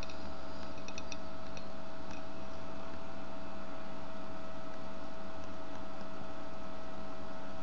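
Steady hiss from an amateur radio transceiver's speaker on the ISS downlink frequency, 145.800 MHz, while nobody is transmitting speech, with a faint steady whistle under it. A few faint ticks sound in the first second.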